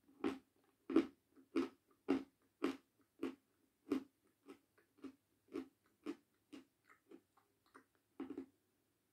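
A person chewing and crunching a piece of edible chalk ('Jasmine' chalk) with the mouth close to the microphone. The crisp crunches come about twice a second and grow fainter as the piece is ground down, with one louder crunch near the end.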